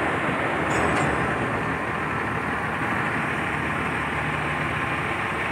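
Heavy construction machinery's diesel engine running steadily at a constant level.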